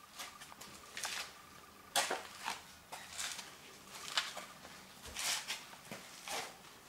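Faint footsteps scuffing on a gritty workshop floor, about one step a second, as a person walks slowly along a boat hull.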